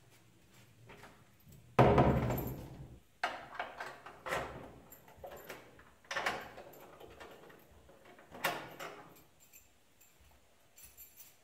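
A door banging shut about two seconds in, followed by several lighter knocks and rattles, each dying away quickly.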